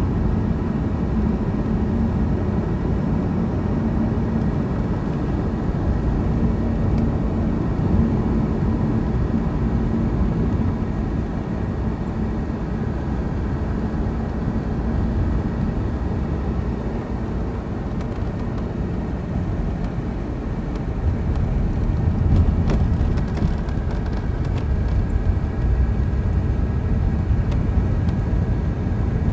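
Steady low engine and road rumble of a vehicle on the move in traffic, with a steady hum, growing a little louder in the last third and a few light clicks about three-quarters of the way through.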